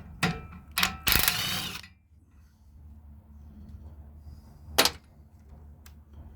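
Hand tools working a brass valve: a couple of sharp metal clicks, then a quick rattling run of clicks lasting under a second, and a loud single click later on.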